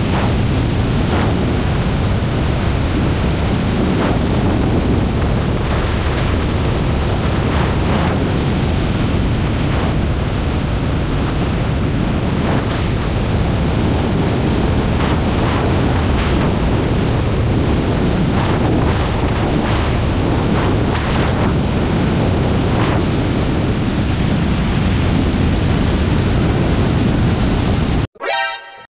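Steady wind rushing over the microphone of a camera on a moving motorcycle, mixed with road noise. About a second before the end the sound cuts out abruptly, with a short high-pitched tone.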